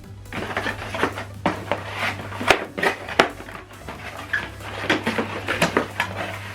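Hands unpacking accessories from a speaker's box: rustling packaging with light knocks and clicks as items are handled, over a steady low hum.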